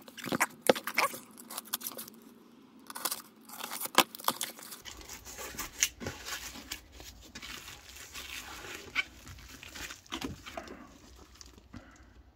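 Hands opening a taped cardboard box and unpacking bubble-wrapped contents: cardboard scraping and tearing, plastic wrap crinkling, and scattered knocks and clicks.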